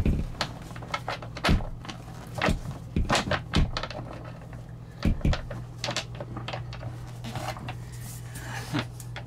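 Thetford Aqua Magic RV toilet being set down and shifted on the floor to line its base up over the flange bolts: irregular knocks, bumps and clunks, several in close succession around the first few seconds and again about five seconds in.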